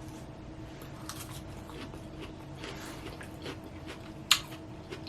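Close-miked chewing of a mouthful of salad: soft crunching and wet mouth sounds, with one sharp click about four seconds in.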